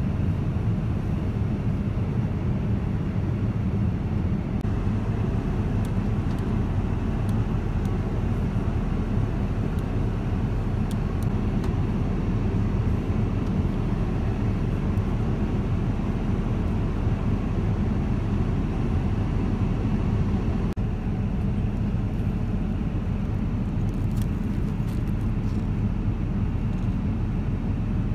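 Steady low rumble of airflow and engines inside a Boeing 787-9 passenger cabin in flight.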